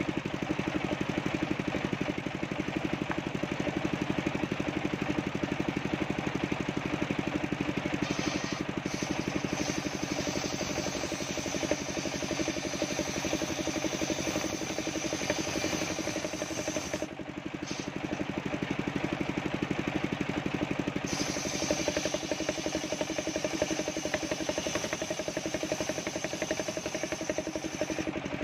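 Homemade table circular saw running steadily as it rips coconut-wood planks lengthwise, a hiss of blade through wood over a constant machine drone. The cut eases off briefly about seventeen seconds in, then resumes.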